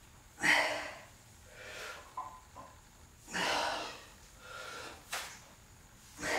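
A man breathing hard from strength training: three strong, rushing exhales about three seconds apart, with weaker breaths between them, and a few faint clicks.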